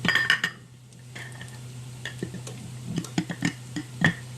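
A measuring cup clinking against a bowl a few times with a short ring, then scattered light taps and scrapes as vital wheat gluten is scooped and poured.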